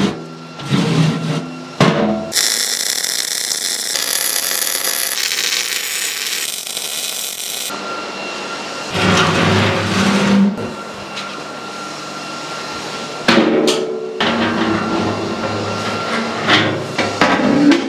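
Steel table frame clanking and knocking as it is flipped and handled. A steady harsh noise from a metalworking tool runs for about five seconds, starting about two seconds in.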